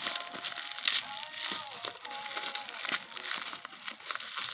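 Plastic packaging crinkling and rustling as it is handled, with many small crackles.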